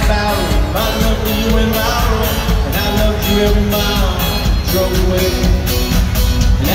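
Live pop-rock band playing through a concert PA: drums, electric guitar and bass guitar, with a male lead vocal singing over them.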